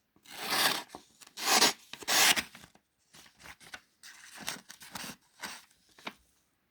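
Pocket knife blade slicing through a sheet of paper: three long rasping cuts in the first few seconds, then a few lighter scratching rustles. The blade has a spot that isn't really sharp, which the owner blames for a rough cut.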